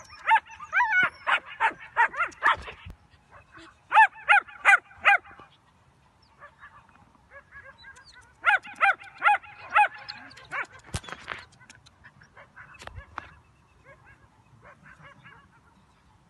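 Puppies barking in high-pitched yips, several a second in quick runs: one at the start, another about four seconds in and a third about halfway, with fainter scattered yips later on.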